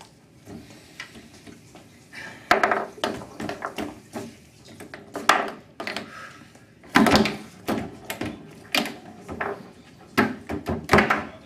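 Foosball table in play: irregular sharp clacks and knocks as the ball is struck by the plastic men and the rods bang and rattle in the table. The hits come every second or two, the loudest a little past the middle.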